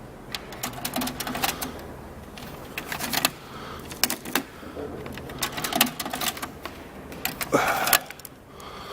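Bursts of rapid metallic clicking and clatter from hand tools working on a driveshaft's bolted parts, in about five short runs, the loudest near the end.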